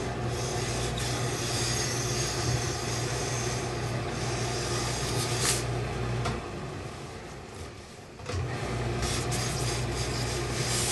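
Heavy steam iron being pushed over a cotton dress shirt, the iron sliding and rubbing on the fabric over a steady hum and hiss from the pressing equipment. The sound drops away for about two seconds past the middle, then comes back.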